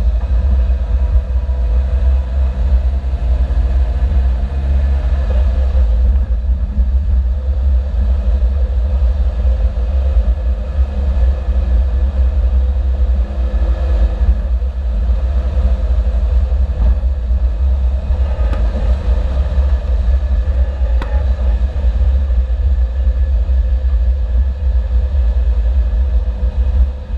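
Motor vehicle driving with a steady, heavy low rumble; engine tones shift in pitch during the first few seconds, then hold steady.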